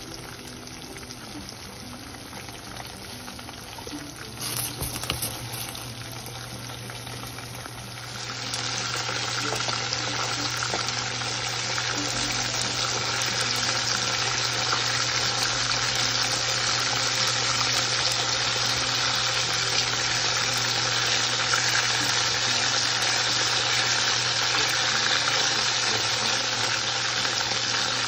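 Chicken karaage pieces deep-frying in olive oil in a pan, a steady sizzle that grows clearly louder about eight seconds in. A low steady hum runs beneath it.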